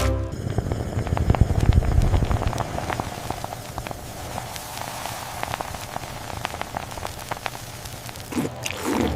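Dense wet crackling and popping of food being eaten or cooked, a rapid patter of tiny clicks, loudest in the first two seconds and thinning out toward the end.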